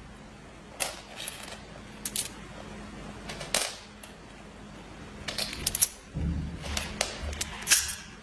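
Irregular sharp clicks and rattles, with a short low rumble about six seconds in, over a faint steady hum.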